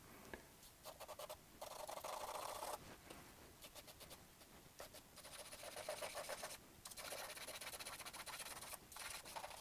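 Stick of charcoal scratching across drawing paper in several bouts of quick, faint strokes, with short pauses between them.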